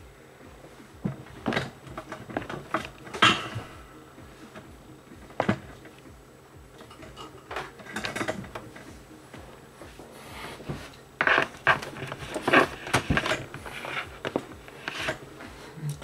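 Irregular knocks, clicks and clatter of objects and cables being handled on a desk, thickest in a cluster in the last few seconds, over a faint steady hum.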